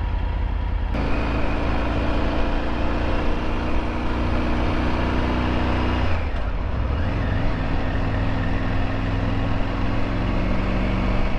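Triumph Tiger 900 GT's three-cylinder engine running under way, with road and wind rumble on the microphone. About six seconds in the engine note breaks off briefly and comes back at a lower pitch.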